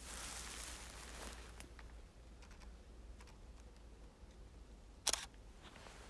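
Footsteps rustling and crunching through frosty dry reeds and grass, loudest in the first second, then fainter. A single sharp click about five seconds in.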